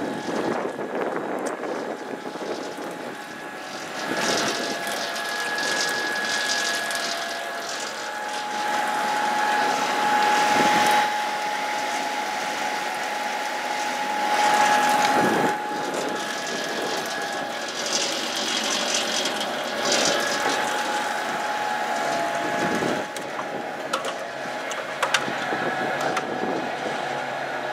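Empty stainless steel double ribbon mixer running, driven by its 15 HP SEW gearhead motor through a roller chain: a steady motor whine with mechanical running noise that swells and eases.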